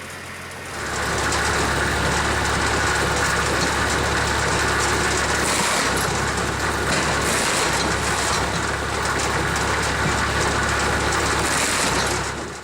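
Wood-processing machinery running steadily, with an engine-like drone, fading out just before the end.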